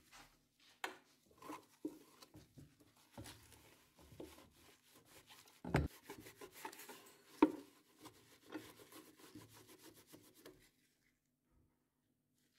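Microfibre cloth rubbing and wiping against the metal housing around an air fryer's heating element, in many short scratchy strokes with small knocks. There are two louder knocks, one a little before the middle and one a little after it. The sound stops a couple of seconds before the end.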